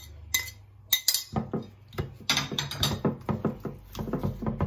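A few sharp clinks on a glass baking dish as the marinade goes in, then a quick run of small wet sounds as hands rub spice marinade into raw chicken pieces in the dish.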